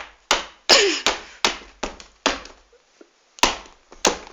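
A series of about nine sharp slaps or knocks at an uneven pace, with a pause of about a second after the seventh.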